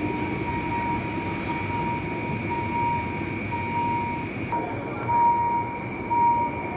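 A train running through a level crossing, a steady rumble, while the crossing warning signal beeps about once a second.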